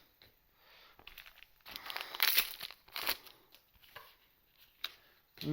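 Foil wrapper of a Z/X trading card booster pack being torn open and crinkled by hand, a short run of crackling and rustling in the middle, with a few lighter handling rustles around it.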